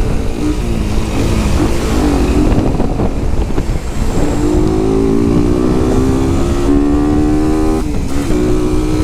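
Suzuki Satria motorcycle engine running under way, with a constant low rumble of wind on the microphone. Its pitch wavers for the first few seconds, then climbs steadily as the bike accelerates, dips sharply near the end and picks up again.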